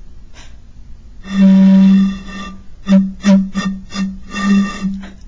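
A glass bottle blown across its mouth, giving a low, steady hooting tone. About a second in there is one long hoot, then a string of about five short hoots at the same pitch.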